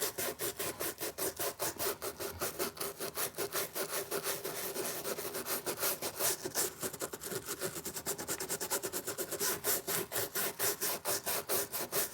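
Rapid back-and-forth scrubbing of detergent-coated knife parts, about five or six strokes a second, kept up without a break.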